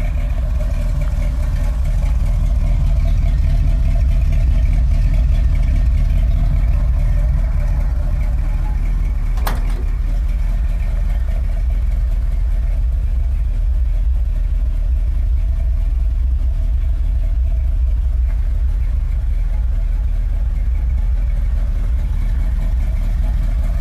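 Kaiser Jeep M715 military truck's engine idling steadily, with one sharp click about ten seconds in.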